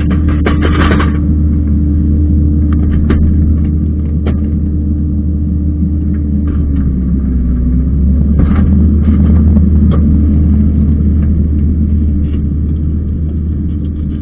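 Kubota skid steer's diesel engine running steadily under load, its pitch dipping briefly about seven seconds in. Scraping and rattling of the rake dragging soil and debris come through in short bursts, loudest at the start and again past the middle.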